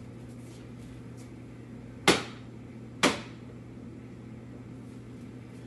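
A bowl set down on an open oven door: two sharp knocks about a second apart, over a steady low hum.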